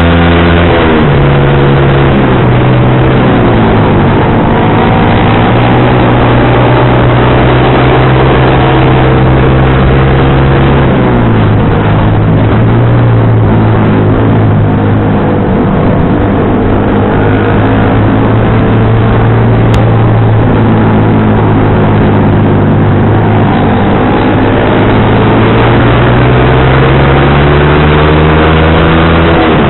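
Sport motorcycle engine running through an aftermarket racing exhaust while riding. The pitch drops in steps near the start and about eleven seconds in, as with gear changes, and climbs slowly in the second half.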